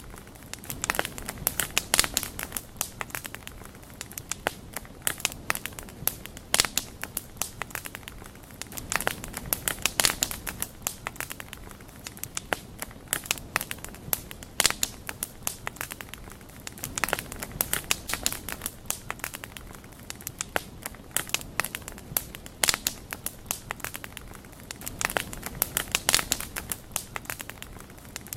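Wood fire crackling: irregular sharp pops and snaps, bunched every few seconds, over a soft steady hiss of the flames.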